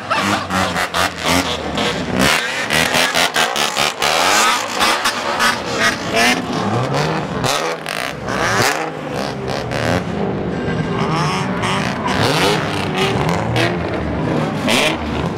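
A group of kaido racer (bosozoku-style) cars with tall exhaust pipes revving together as they pull out. Many engines overlap in rapid throttle blips that rise and fall in pitch, settling into smoother, longer revs after about ten seconds.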